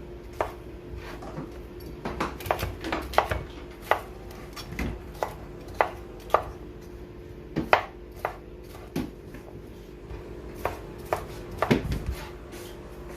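Kitchen knife slicing red bell pepper and striking the cutting board in single, irregularly spaced strokes.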